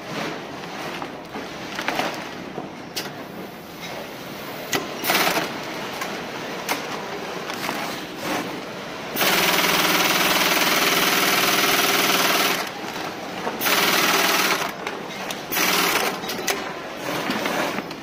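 Industrial FIBC bulk-bag sewing machine stitching woven polypropylene bag fabric in bursts, with rapid mechanical clatter. Its longest, loudest steady run comes about halfway through and lasts three to four seconds, followed by shorter runs, with knocks and clatter in between.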